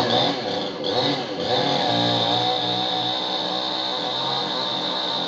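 Chainsaw engine at high revs, surging unevenly for the first second or so, then running steadily at full speed.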